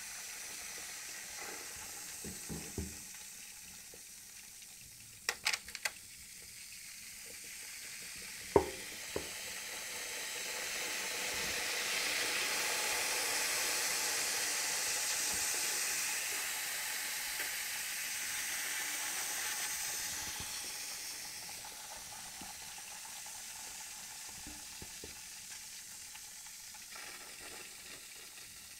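Aluminium foil reacting violently with concentrated sodium hydroxide, sizzling and fizzing as the gas bubbles off; the hiss swells to its loudest about halfway through and then slowly eases off. A few sharp clicks in the first third, the loudest about eight seconds in.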